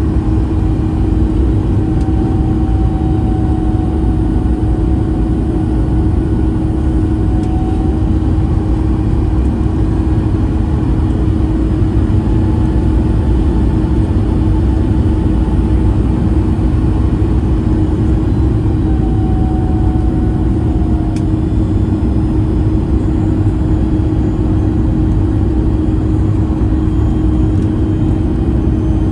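Boeing 737 MAX 8's CFM LEAP-1B jet engines running in flight, heard inside the cabin by the window over the wing: a steady roar with a constant hum.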